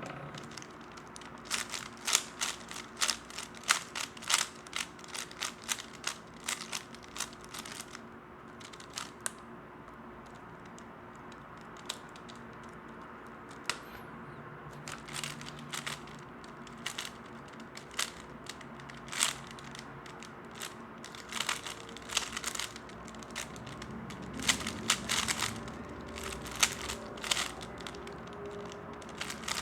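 3x3 Rubik's Cube being turned fast in a speedsolve: rapid runs of sharp plastic clicking, dense for the first several seconds, sparse in the middle, and dense again near the end.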